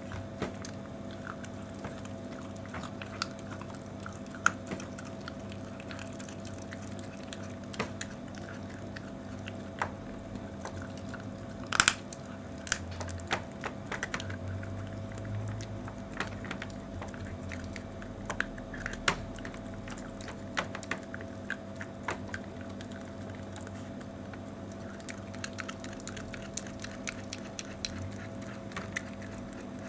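Toy Manchester Terrier chewing and crunching a raw meaty bone: irregular wet crunches and sharp clicks, the loudest a quick cluster about twelve seconds in, over a steady low hum.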